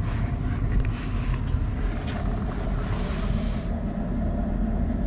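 Steady low rumble of a vehicle, with a hissing noise over it that swells and then stops about three and a half seconds in.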